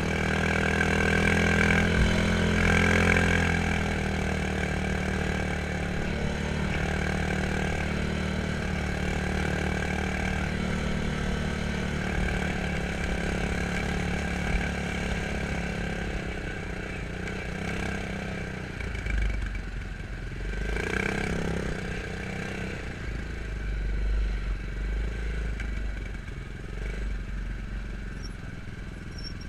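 Quad bike (ATV) engine running, a little louder in the first few seconds and then steady, with deep uneven rumbles in the second half.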